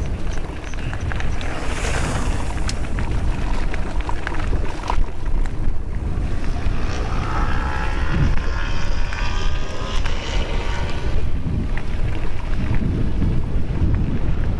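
Wind buffeting the microphone and mountain-bike tyres rolling fast over a loose chalk-and-flint track, with scattered stone clicks and rattles. A whirring tone comes in about seven seconds in and fades about four seconds later.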